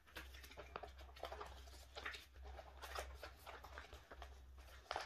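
Faint rustling and crinkling of plastic binder sleeves, with small irregular ticks and scrapes as photocards are pulled from their pockets and slid into new ones, over a steady low hum.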